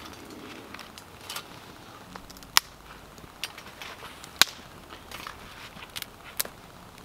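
Irregular sharp clicks and light knocks, about six in all, the two loudest about two and a half and four and a half seconds in.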